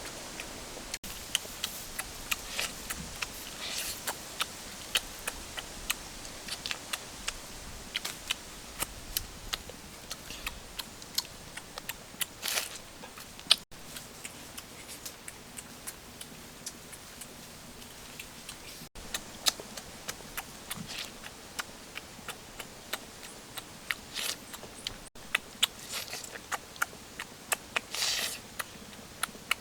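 Someone eating cooked chicken wings close to the microphone: irregular crisp clicks and crunches of biting and chewing, with a few longer scraping crunches.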